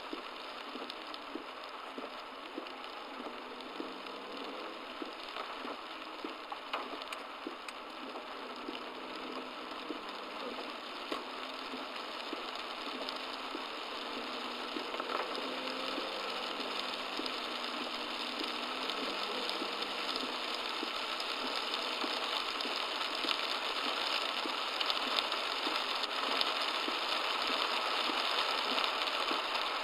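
Torrential rain pelting a car, heard through a dashcam inside as a dense, steady hiss of drops that slowly grows louder. A faint engine hum sits underneath.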